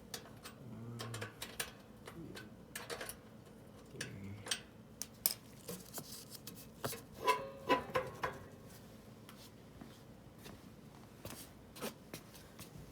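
Hand tools and metal parts of a minibike clinking and clicking at irregular intervals during a chain-tension adjustment, with a quick run of louder clicks a little past the middle.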